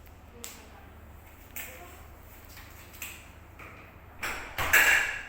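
A few light clicks and knocks, then a louder rustling burst in two parts near the end, as of things being handled.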